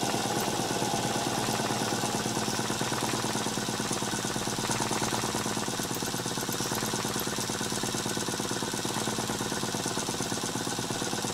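Stuart Sirius twin-cylinder model steam engine running steadily on steam, with a fast, even beat.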